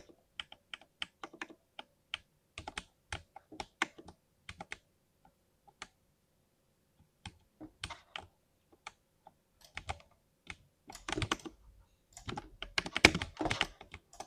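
Typing on a 60% keyboard. Separate keystrokes come at first, then pause for about two seconds midway, then pick up again into a fast, dense run of keystrokes near the end.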